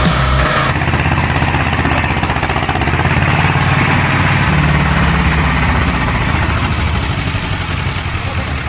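A heavy engine running steadily with a low rumble.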